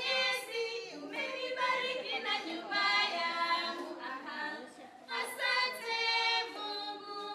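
A small group of women singing together a cappella, with no instruments, with a brief break about five seconds in.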